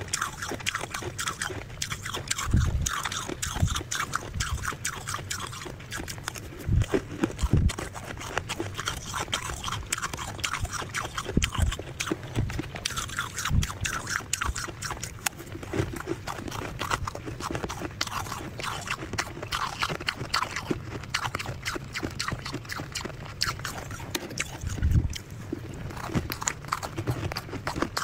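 Close-miked chewing of soft freezer frost: a dense, continuous run of crisp crackling crunches, with a few louder low thumps here and there.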